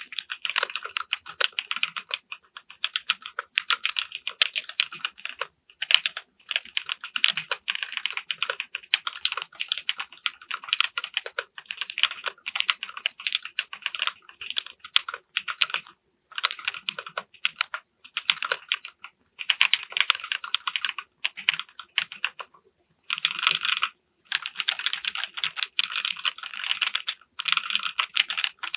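Fast typing on a DR-70F mechanical keyboard fitted with HMX Sonja linear switches: dense runs of key clacks, broken now and then by short pauses.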